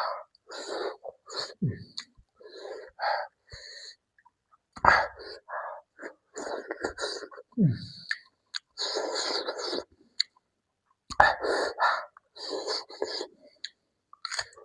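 A person eating noisily, chewing and smacking with repeated short hissing breaths drawn in and out, the kind a hot chilli brings on, plus a couple of low falling groans.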